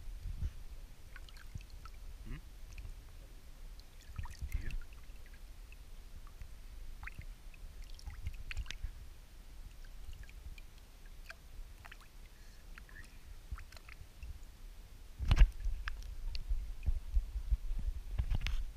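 Scattered light knocks and low thumps of a canoe and gear on the water, with one louder knock about three-quarters of the way through.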